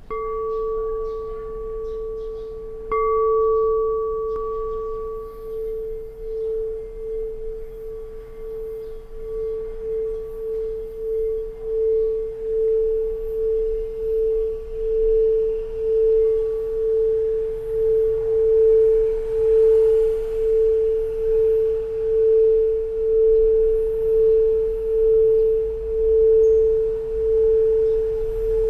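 A mindfulness bell, a singing bowl, sounds a steady low tone with a slow pulsing wobble. It is struck once about three seconds in, which briefly brings out its higher ringing overtones. The wobbling tone swells louder in the second half.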